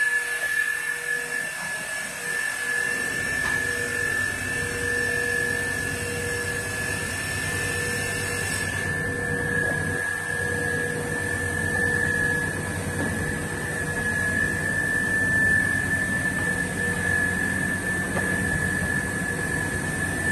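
MJ1300-X5 multi-blade rip saw running steadily, its gang of saw blades giving a steady high-pitched whine over the machine's drone while a board is fed through to be cut into grooves.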